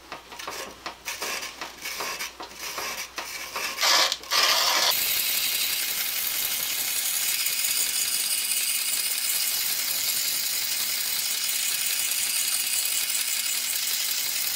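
Stanley No. 8 plane blade, clamped in a jig, being ground on a wet, treadle-driven sandstone wheel: irregular clicking and scraping for the first few seconds, then a steady grinding hiss from about five seconds in that stops near the end. The wheel is wearing into a slurry that hones out the nicks in the edge.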